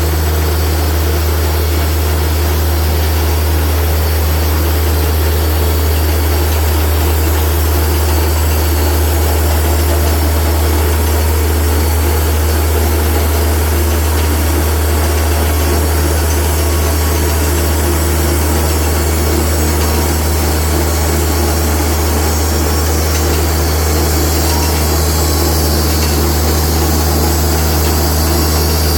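Portable bandsaw sawmill's engine running steadily with an even low hum as the mill saws red oak into boards.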